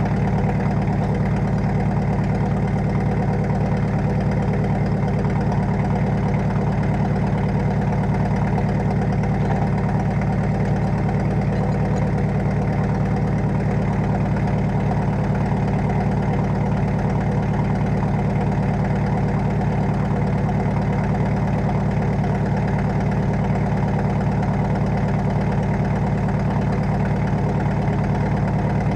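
John Deere 2010 loader tractor's engine idling steadily.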